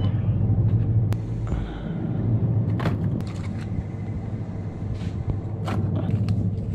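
An MPV's engine running, heard from inside the car: a steady low drone and rumble with a few faint clicks.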